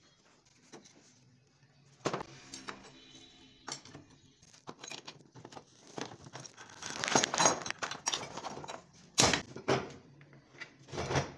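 Handling noise from an electric router that is switched off: scattered clicks, clinks of metal and knocks as its round wooden base plate is taken off and the bit holder is worked on by hand. The clatter is busiest about seven seconds in, with a sharp knock about nine seconds in and another near the end.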